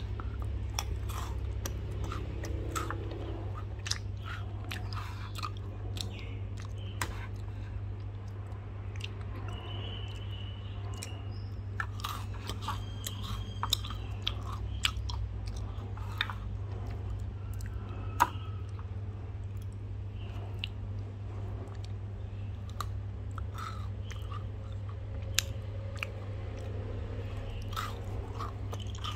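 Close-up chewing and crunching: someone eating, with irregular crisp crackles and clicks. A steady low hum lies underneath.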